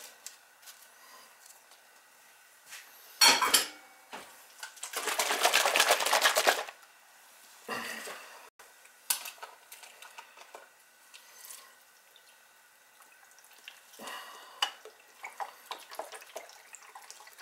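Kitchen handling noises around a roasting pan of raw vegetables: a sharp knock about three seconds in, then a dense clatter lasting about two seconds, the loudest sound, then scattered light clicks. Near the end, seasoning shaken from a paper packet over the pan gives faint quick ticking.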